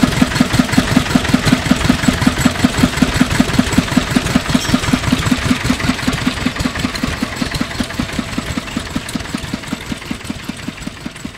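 Kubota KND5 single-cylinder diesel engine on a Kubota KF rotary tiller running at a slow, even beat of about six firing pulses a second. It grows fainter over the last few seconds.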